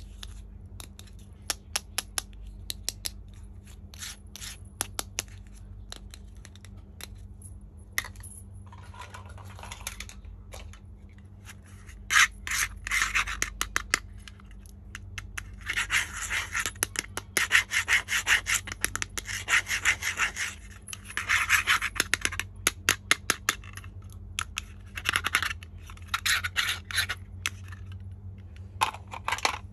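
Hands handling a plastic toy kitchen set and its packaging: scattered sharp clicks and taps, with several spells of rapid rubbing and scraping, the longest in the middle.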